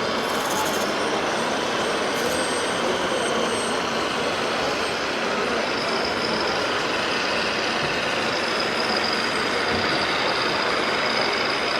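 RC model trucks running, a steady truck-like engine noise, with a thin high whine joining about halfway through.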